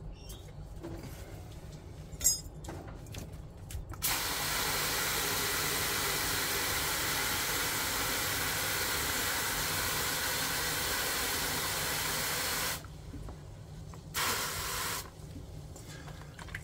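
Garden hose pistol spray nozzle running water into a plastic bucket with a steady hiss for about nine seconds, cutting off abruptly, then a brief second squirt; the bucket is being filled to soak a potted plant's roots. A sharp click about two seconds in comes before the water starts.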